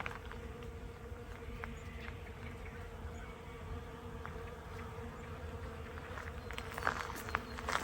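Bees buzzing in a steady, unbroken hum while they work the garden's flowers.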